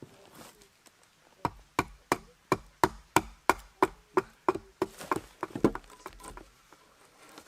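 Wood being struck again and again by a tool: about fifteen sharp knocks, roughly three a second, starting about a second and a half in and stopping after about six seconds.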